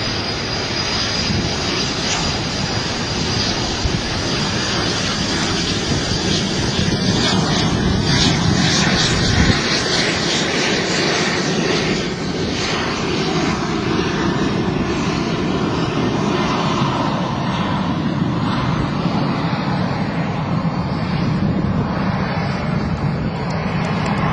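Propeller airplane's piston engine running loud and steady with a dense rushing noise, and one sharp knock about nine and a half seconds in.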